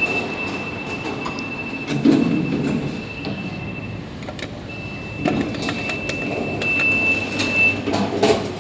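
GoldStar express lift running: a rattling, rumbling car with a steady high-pitched whine and scattered clicks and knocks. The whine breaks off about four seconds in and comes back a moment later.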